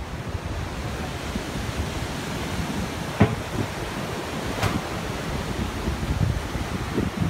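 Ocean surf breaking and washing up a sandy beach, with wind rumbling on the microphone. Two brief knocks, about three and four and a half seconds in.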